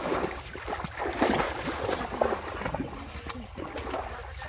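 Muddy water splashing and sloshing in uneven bursts as people wade and thrash through a shallow channel.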